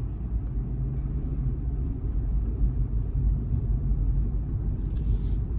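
A steady low rumble, with a faint brief hiss near the end.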